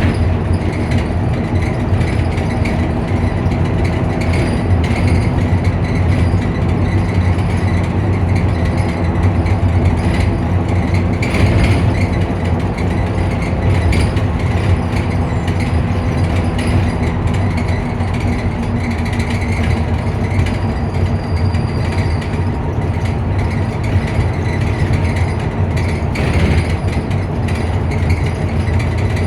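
Optare Solo bus's engine idling with its cooling fan running: a steady drone.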